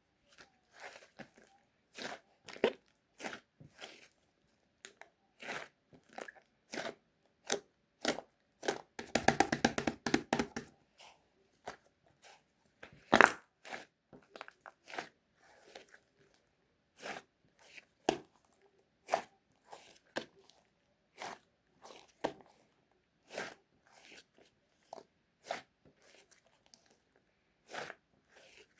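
Close, crisp crunching and crackling, scattered irregularly about once or twice a second, with a dense run of rapid crackles about nine seconds in and one sharp, loud crack a few seconds later.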